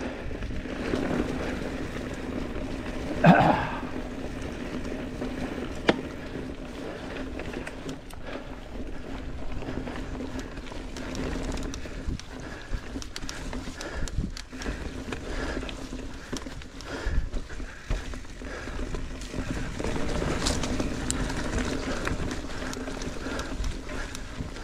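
Mountain bike riding fast down a dirt trail: tyres rolling over the ground under a steady hum, with frequent small rattles and knocks from the bike and one louder, brief sound about three seconds in.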